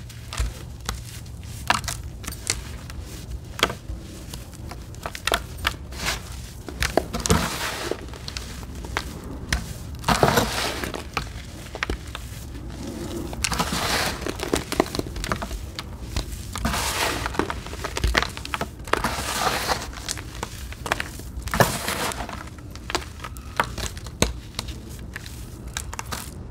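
Hands squeezing and crumbling a damp, gritty sand mixture in a plastic basin: irregular crunching and crackling with grainy rustles that swell and fade as each handful is worked, over a low steady hum.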